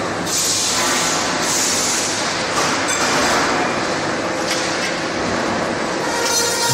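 ERW high-frequency steel tube mill running: a loud, steady mechanical din from its roll stands and drives, with two short hissing bursts in the first two seconds and a few faint ticks.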